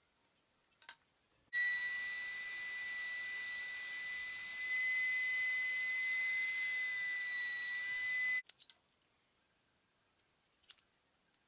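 Router running in a router table with a steady high whine while a chamfer bit trims the edge of an olive-wood piece; it starts about a second and a half in and cuts off abruptly about eight seconds in. A single click comes just before it.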